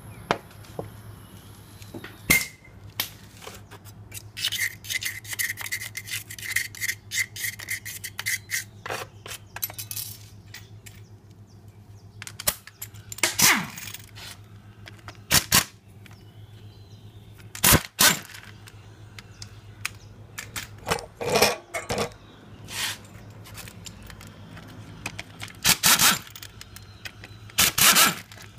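Bolts being undone on a Yamaha Mio scooter's final-drive gear case cover: a hand-held power tool runs in short bursts against the bolts, among sharp metallic clicks and clinks of tools and loosened bolts. A rapid ticking run lasts about four seconds in the first third.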